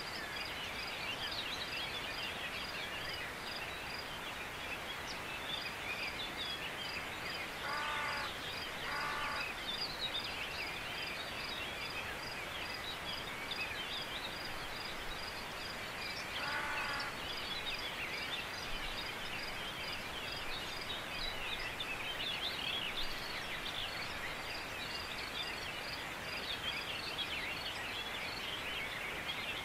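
Outdoor ambience of birds chirping and calling over steady background noise, with a high chirp repeating evenly throughout. Three louder calls, each a quick run of pitched notes, stand out at about 8, 9 and 17 seconds.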